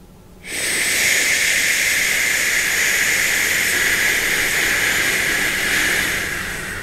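A man exhaling a long hissing "shh", the qigong healing sound for the liver. It sets in about half a second in, holds for roughly six seconds, and tapers off near the end.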